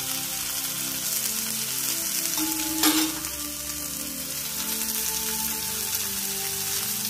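Fish shallow-frying in oil on a flat dosa griddle, a steady sizzle of the oil spooned over the top. A single sharp knock about three seconds in.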